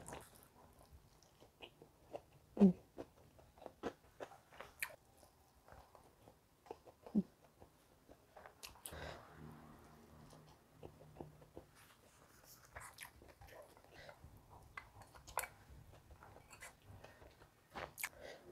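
A person chewing a meal of fried salted fish and fried egg with rice, close to the microphone: quiet chewing with scattered lip smacks and small clicks. Two brief low hums come about 3 and 7 seconds in.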